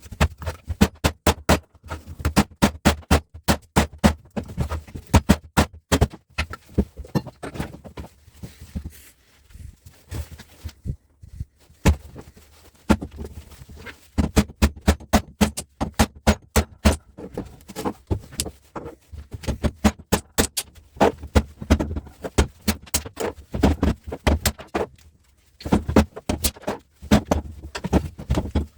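Rapid, dense clicking and clanking of metal parts and hand tools, the sound of a sped-up time lapse of unscrewing and taking apart switchgear. Busy stretches with short lulls.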